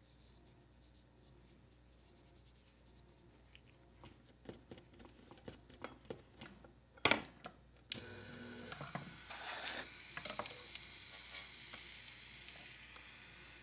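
Small clicks and taps of handling, with one sharp click about seven seconds in. About a second later a small rotary tool starts and runs steadily with a faint high whine, its felt buffing wheel polishing a scratched plastic window piece.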